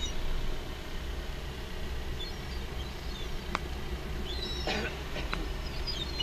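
Gulls calling as they fly overhead: short, high, thin cries about two seconds in, again around four and a half seconds, and near the end. A steady low wind rumble on the microphone runs underneath, with a couple of sharp clicks.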